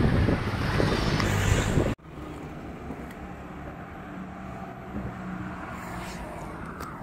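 Wind buffeting the microphone as a loud rumble, cut off abruptly about two seconds in. It gives way to quieter, steady road-side noise with a faint low hum.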